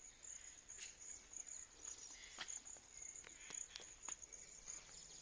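Faint, high, steady chirring of insects with a fast pulse, and scattered footsteps and light clicks over it.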